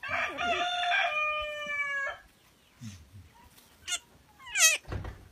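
A rooster crowing once, a long call of about two seconds. About four seconds in come two short high squeals, the second louder, followed by a low thud.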